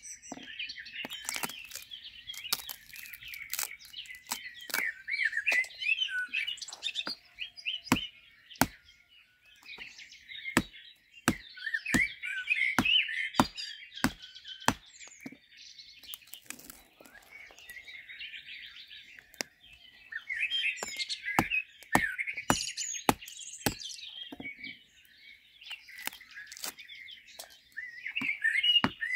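A small hand axe chopping a slab of stiff dried salt cod on a wooden log: sharp, irregular strikes, some in quick runs, others a second or two apart. Small birds chirp and sing throughout.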